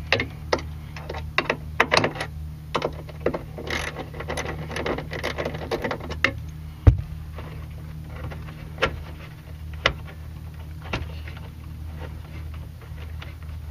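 Small metal clicks and rattles as a loosened Phillips screw is unscrewed by hand from the power antenna mount and the wire bundle is handled, with a sharp knock about seven seconds in, over a steady low hum.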